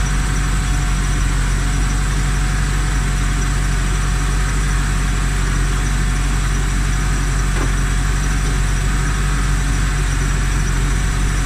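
Toyota Tarago van's engine idling steadily, with the air-conditioning compressor engaged while refrigerant is charged into the system. A faint click about three-quarters of the way in.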